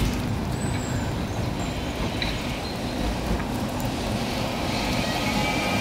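Steady low rumble of a moving vehicle, with a faint high whine setting in near the end.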